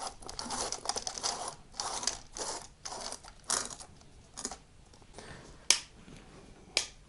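LED bulbs being screwed into a softbox's four-socket plastic lamp holder: repeated scraping and rattling. Then two sharp clicks near the end as the lamps are switched on.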